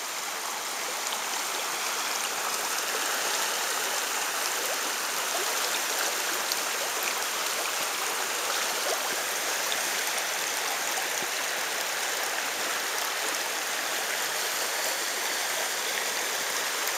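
Steady rush of a river's current flowing past, an even, unbroken sound of moving water.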